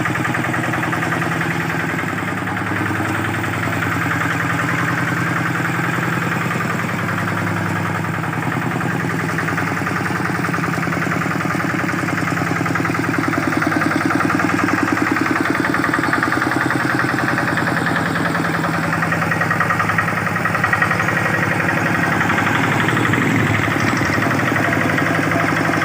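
Two-wheel hand tractor's Kubota single-cylinder diesel engine running steadily with an even pulsing beat, getting a little louder about halfway.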